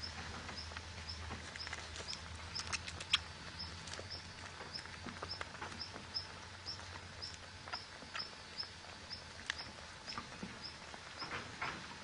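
A short, high animal chirp repeating steadily about three times a second, with scattered light clicks and taps.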